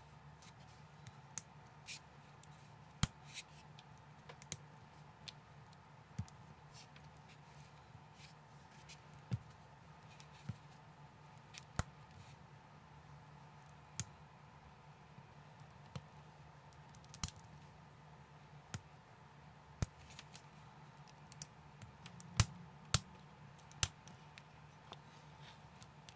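Small plastic building bricks clicking as they are pressed and snapped together by hand: sharp single clicks every second or two, a few in quick succession near the end, over a faint steady hum.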